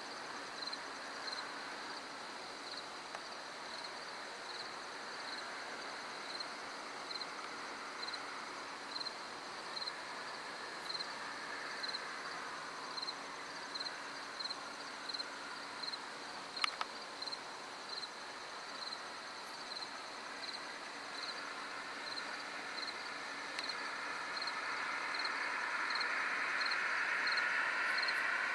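Crickets chirping in a steady, even pulse, a bit more than one chirp a second. There is a single sharp click about halfway through. Over the last several seconds a distant sound with several tones swells and grows louder.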